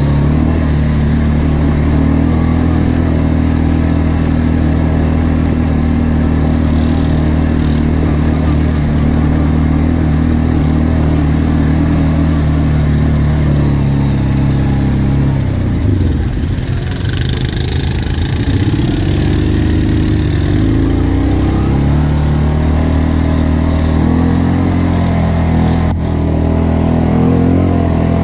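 Kawasaki KVF 750 Brute Force quad's V-twin engine running steadily under way. Its revs drop and waver for a few seconds about halfway through, then it settles back to a steady pace.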